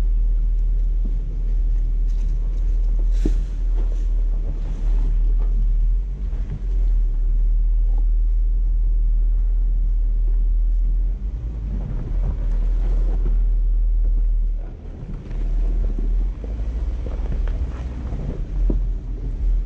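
Jeep engine running at low speed as it crawls over rock ledges, with heavy wind buffeting the microphone. The rumble eases briefly about eleven and fifteen seconds in.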